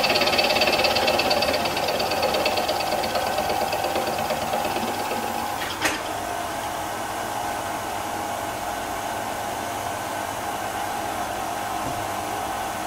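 Milling machine with a roughing end mill cutting a flat on a cast rocker-arm casting: a steady, ringing cutting whine, loudest for the first few seconds and then easing off. A sharp click comes about six seconds in, after which the spindle keeps running more quietly.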